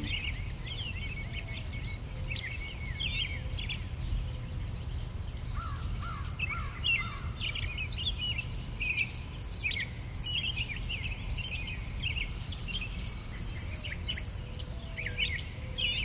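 Woodland birds singing, with many quick chirps that rise and fall in pitch, over a high note repeated steadily and a low rumble.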